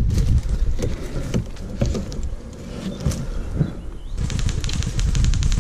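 Handling noise and scattered clicks, then from about four seconds in a fast, even stream of sharp ticks: an airsoft gun firing on full auto.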